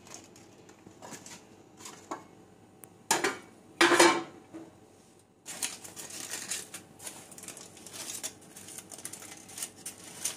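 Aluminium foil crinkling and rustling as a foil lining is pulled to lift a slab of set burfi out of a metal baking tin. Two loud clanks of the metal tin come about three and four seconds in, the second the loudest, and steady crinkling follows.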